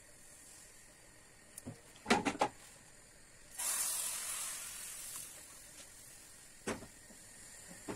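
Pancake batter sizzling as it is poured into a hot crepe pan, starting suddenly about three and a half seconds in and fading away over a second or so. Before it come a few quick clattering knocks of the pan or ladle, and there is another single knock near the end.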